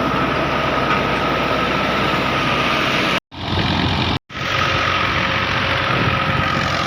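Farm harvesting machine engine running steadily under load, with a steady high whine over the engine note. The sound cuts out completely twice, briefly, about three and four seconds in.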